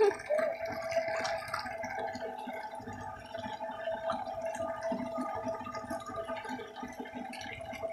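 Water sloshing and splashing in a plastic tub as hands grope through it for live fish, with small drips and splashes. A faint steady tone runs underneath.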